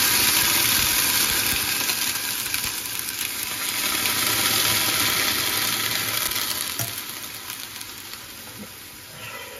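Water poured from a steel jug into a hot stainless steel pan of diced chayote and oil, sizzling loudly and then dying down steadily over several seconds.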